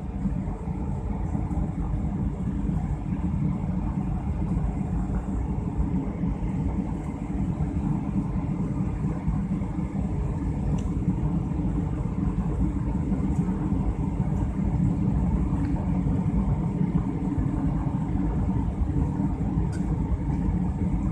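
Jet airliner cabin noise on approach: the steady, deep rumble of the engines and airflow heard from a window seat.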